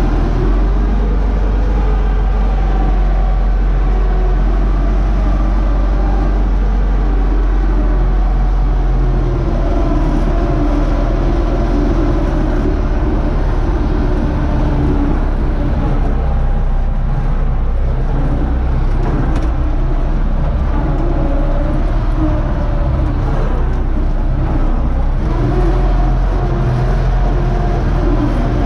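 UTB Universal U650 tractor's four-cylinder diesel engine running steadily under load while pulling a three-furrow plough, heard from inside the cab.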